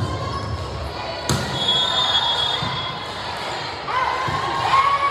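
A volleyball is struck sharply about a second in, with voices and court noise going on throughout.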